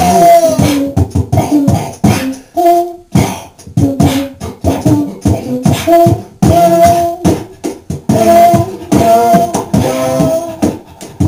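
Beatboxing into a cupped handheld microphone: a steady rhythm of mouth-made drum hits with short hummed notes woven between them.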